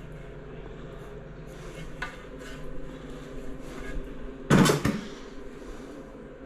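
Ceramic tile being handled: a few light taps, then a loud double knock about four and a half seconds in as the tile is set down on a hard surface, over a steady low hum.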